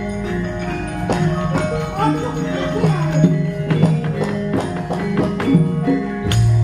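Javanese gamelan ensemble playing as accompaniment to a wayang kulit shadow-puppet play: held metallophone and gong tones under quick struck mallet notes and sharp knocks, with a deep gong-like tone coming in near the end.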